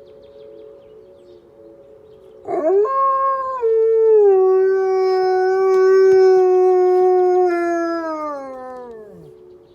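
A canine's single long howl. It swoops up about two and a half seconds in, holds one steady pitch for several seconds, then drops in pitch as it fades out near the end. A fainter, steady wail runs underneath.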